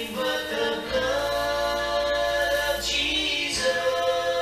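A hymn sung by voices as background music, holding long, drawn-out notes with a brief break between phrases.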